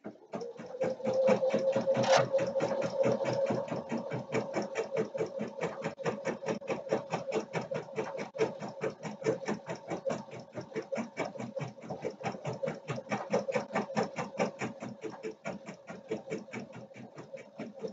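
Husqvarna Viking Designer Topaz 50 embroidery machine stitching lettering onto nylon webbing: a rapid, even run of needle strokes over a steady motor hum, with one sharp click about two seconds in.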